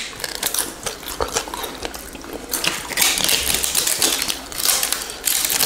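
Close-up eating sounds: chewing and biting into deep-fried chicken wings, with crunches, clicks and mouth noises that come in two louder spells partway through and near the end.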